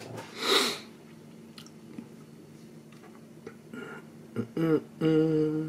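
Small plastic model-kit parts being handled, with a few faint clicks, and a short breathy noise about half a second in. Near the end comes a man's voice in a low, drawn-out hum.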